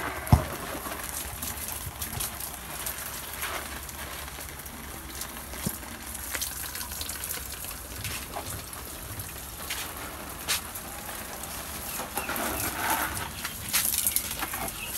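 Water from a garden hose spraying and splashing onto potted plants and soil, a steady hiss throughout. A sharp knock comes about half a second in.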